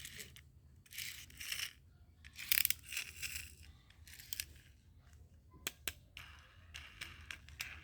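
Plastic toy being handled: bursts of rustling and scraping plastic, with a couple of sharp clicks about five and a half seconds in.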